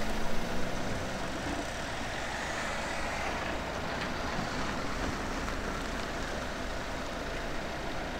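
An ambulance van pulling away down a road, with a steady rush of engine and tyre noise; a car drives off behind it.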